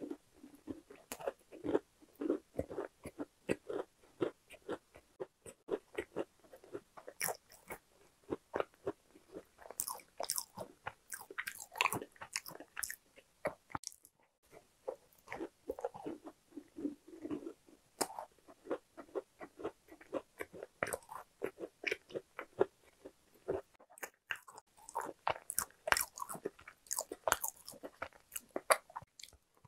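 Close-miked chewing and biting of a thick cookie: rapid small crunches and crackles in quick runs, with two brief breaks.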